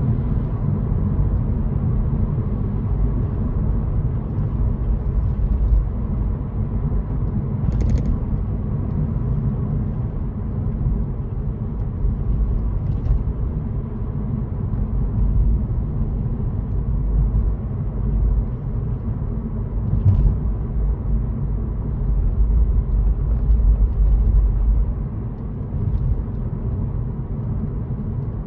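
A car driving along a road: a steady low rumble of engine and tyres, with a few brief knocks scattered through.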